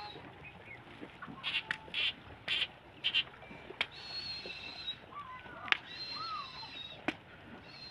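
Birds calling over a moving cattle herd: a drawn-out high, whistle-like note about a second long, repeated every couple of seconds, with short chirps and curved calls in between. A few sharp clicks are also heard.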